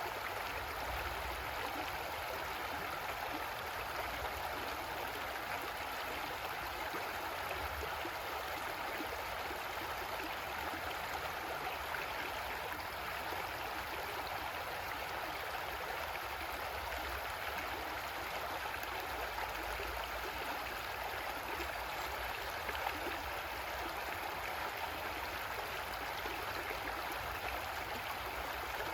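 Creek water running over rocks: a steady, even rush and gurgle.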